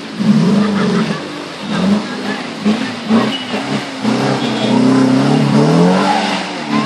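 Suzuki Jimny 4x4's engine revving hard under load, its pitch rising and falling again and again as it pushes through a river and climbs the muddy bank.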